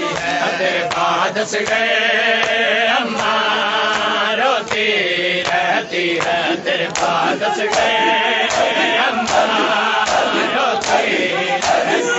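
A crowd of men chanting a noha lament together, with regular hand slaps of matam, chest-beating on bare chests, keeping time.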